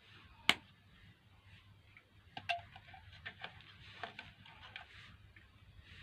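Scattered clicks and taps of small blender parts being handled during reassembly, with one sharp click about half a second in and another about two and a half seconds in.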